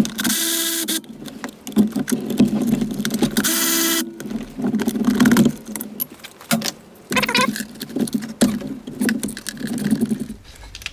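Ratchet wrench clicking as the 10 mm bolts and nuts holding a bracket on the engine are loosened. There are two short runs of fast ratcheting, the first right at the start and the second about three and a half seconds in, then irregular clicks and metallic clinks of the tool and parts.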